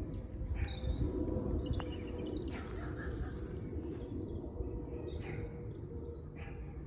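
Small birds chirping intermittently in short high calls, over a steady low hum and background noise, with a few brief soft rustles.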